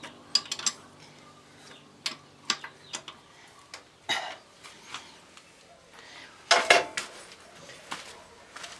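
Metal tools and parts clinking and knocking at irregular intervals, with a louder clatter about six and a half seconds in.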